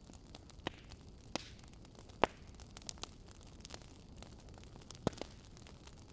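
Wood fire burning in a wood stove, crackling with scattered sharp pops, the loudest a little over two seconds in, over a faint steady hiss.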